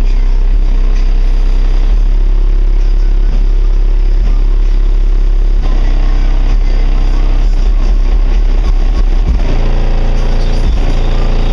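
Bass-heavy rap music played very loud through a car's subwoofer system, the deep bass so strong that it overloads the recording.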